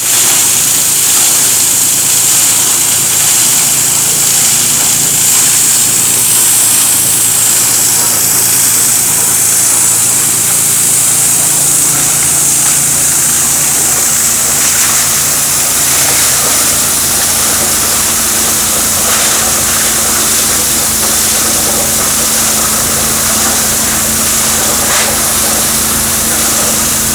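Plastic grinding machine running under test, a loud steady machine noise with a high hiss over a low hum. A few sharp knocks come in the second half.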